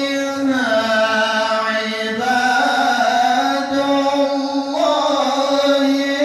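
A man reciting the Quran in the mujawwad style, chanting solo into a handheld microphone. He holds one long unbroken line, sliding up in pitch about half a second in and again about two seconds in, then dropping near the end.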